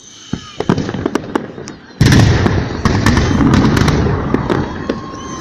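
Holiday fireworks salute: scattered sharp bangs, then about two seconds in a sudden loud, dense barrage of crackling explosions that eases off near the end.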